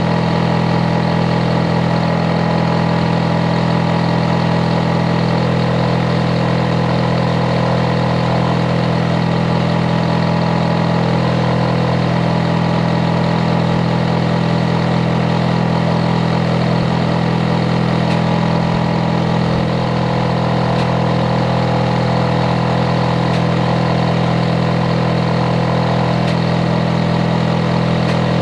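Hitachi air-conditioner outdoor unit running loud and steady: a deep, unvarying hum with a droning layered tone from its compressor and fan. It is loud enough to be a noise nuisance.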